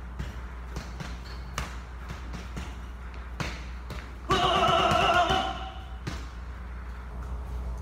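Repeated short thuds at an uneven pace over a steady low hum, with a louder pitched sound lasting about a second just past halfway.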